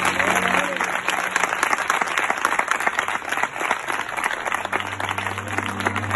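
A small crowd applauding, a dense and steady patter of many hands clapping with a few voices mixed in. It cuts off abruptly just after the end.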